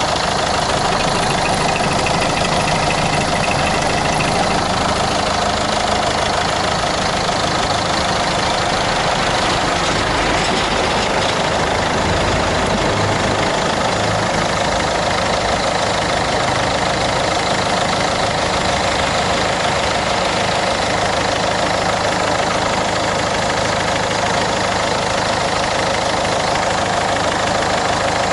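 1.6 HDi four-cylinder diesel engine with double overhead camshafts idling steadily.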